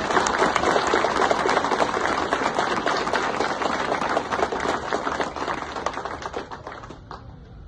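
A roomful of people applauding, many hands clapping at once, the clapping dying away near the end.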